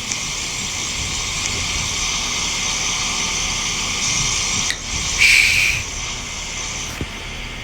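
Heat pump outdoor unit hissing steadily as it goes through a defrost cycle, with a louder rush of hiss a little after five seconds in.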